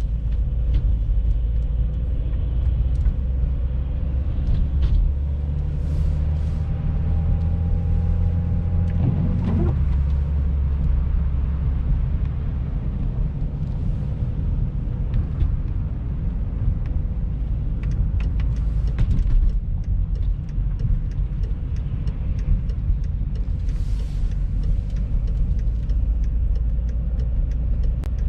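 BMW X5 driving on wet, snowy roads, heard from inside the cabin: a steady low rumble of engine and tyres. The pitch of the drone changes about nine to ten seconds in.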